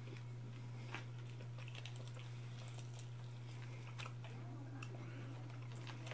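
Close-up chewing and tearing of crispy fried chicken by hand, with scattered small crackles and clicks, over a steady low hum.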